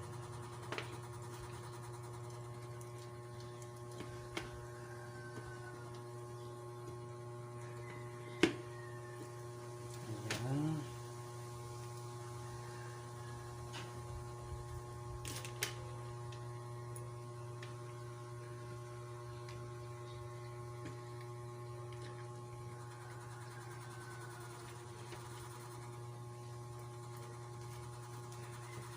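Steady electrical hum with a few light clicks of handwork, the sharpest about eight seconds in, and a short rising sound around ten seconds.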